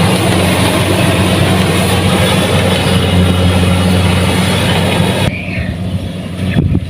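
Kubota DC-70 Plus combine harvester running steadily: a deep engine hum under a wide, hissing mechanical clatter. About five seconds in, the hiss drops away suddenly while the engine hum carries on.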